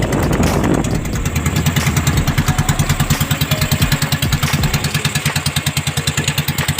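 Small boat engine running with a rapid, even putter.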